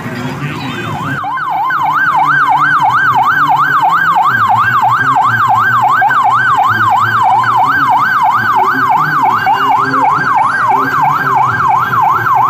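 Police vehicle siren in a fast yelp, its pitch sweeping up and down about three times a second, coming on loud about a second in.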